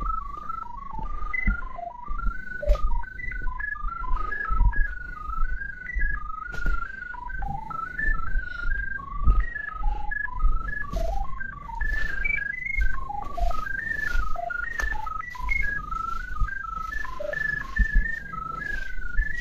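Drain-camera locator receiver beeping in a quick run of short tones that jump up and down in pitch as it is swept over the ground to pick up the camera head's sonde, with dull thumps from footsteps and handling.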